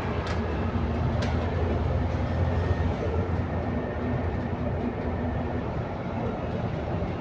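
Inside an ADL Enviro400 MMC double-decker bus with a Voith gearbox, heard while it is on the move: a steady low engine and drivetrain drone with road noise. Two short clicks or rattles come within the first second and a half.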